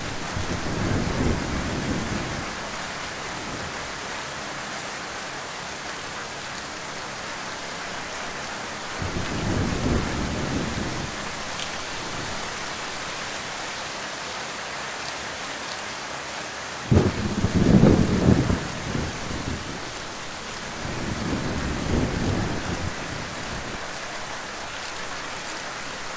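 Heavy rain falling in a steady hiss, with low thunder rumbling several times; the loudest roll starts suddenly about two-thirds of the way in and lasts a couple of seconds.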